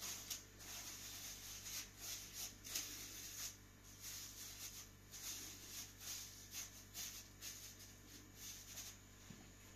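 Faint, irregular rustling of fresh leafy herbs being picked over and stripped by hand, over a low steady hum.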